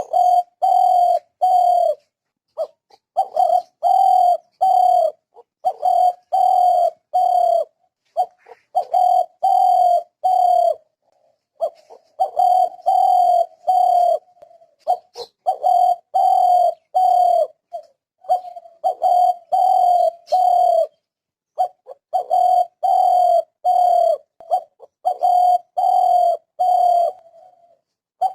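Spotted dove cooing: runs of short, repeated coos, each about half a second long, broken by brief pauses between phrases.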